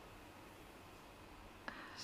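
Near silence: room tone, with one faint click near the end.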